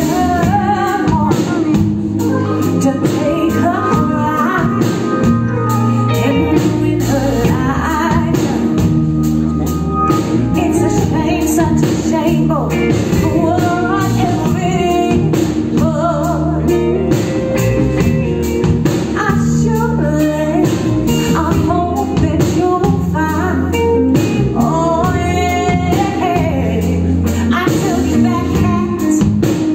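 A live band playing a blues-soul song with a woman singing lead into a microphone, guitar and drums under her voice, heard from the audience.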